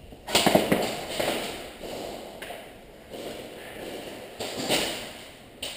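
Scuffing, tapping and thuds of a player moving in gear: a loud flurry about a third of a second in, lighter scuffs after, another flurry near the end and a sharp click just before it ends.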